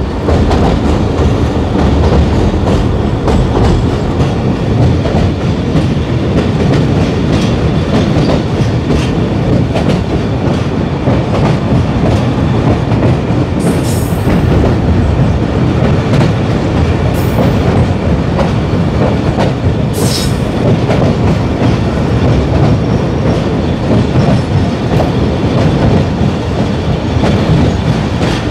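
Pakistan Railways passenger train heard from aboard, running steadily: a continuous rumble of wheels on rails with clickety-clack from the rail joints. About halfway through come three short high-pitched bursts a few seconds apart.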